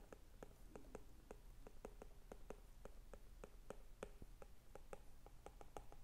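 Stylus tapping and sliding on a tablet's glass screen during handwriting: faint, irregular clicks, several a second.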